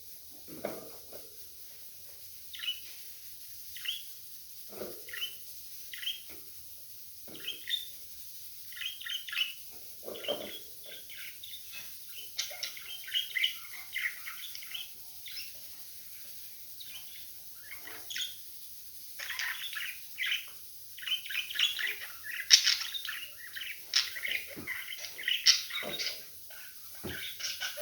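Budgerigars chirping in short, scattered calls, sparse at first and growing busier and denser after about twelve seconds, with a few soft low knocks among them.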